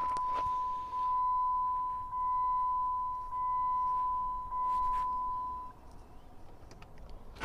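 2004 Chrysler PT Cruiser's dashboard warning chime: a steady high electronic tone that pulses about once a second, five times, then stops about three-quarters of the way through.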